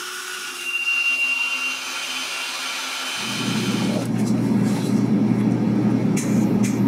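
Portable bandsaw cutting through a steel plate, a hiss with a thin whine. About three seconds in, it gives way to a louder, steady low machine hum.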